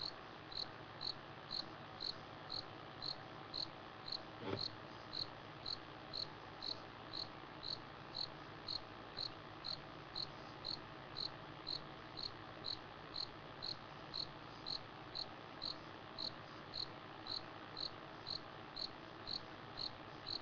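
Night insect chirping at a steady, even rate, a little under two high chirps a second. A single short knock about four and a half seconds in.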